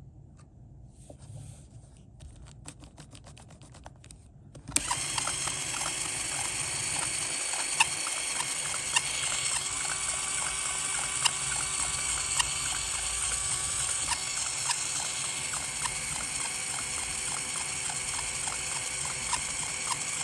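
LEGO Technic gears and turntable turning under power: a few quiet clicks, then about five seconds in a steady, louder mechanical whirring and grinding with scattered clicks starts suddenly and keeps going.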